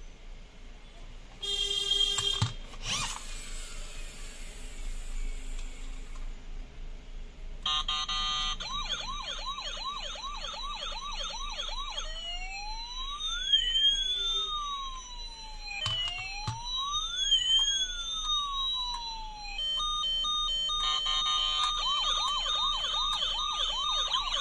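Toy police car's electronic siren sound cycling through patterns: a short burst of beeps about two seconds in, then a fast warbling siren, a slow rising-and-falling wail, and the fast warble again near the end. A few clicks come with the beeps early on and about two-thirds of the way in.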